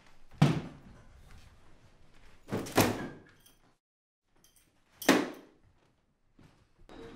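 Three heavy thuds about two and a half seconds apart. Each falls in pitch as it dies away.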